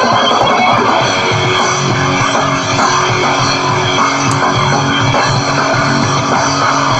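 Rock music with distorted electric guitar playing an instrumental passage, no vocals.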